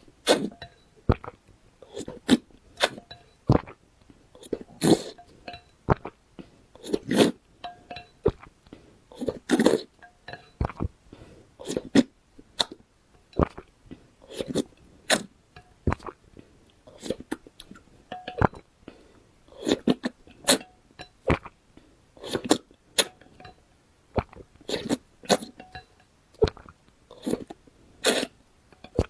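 Close-miked eating mouth sounds: chewing with quick, irregular wet smacks and clicks, about two a second.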